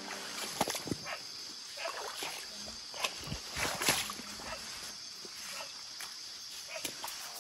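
Footsteps wading through a shallow, rocky stream: scattered sloshes, splashes and knocks of stones, over a steady high-pitched hiss.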